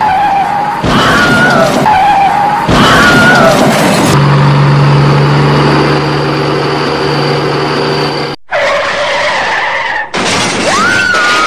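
A string of vehicle sound effects that switches abruptly every few seconds: skidding, gliding tones, and in the middle a steady engine hum with a high whine. A brief drop-out comes just past eight seconds.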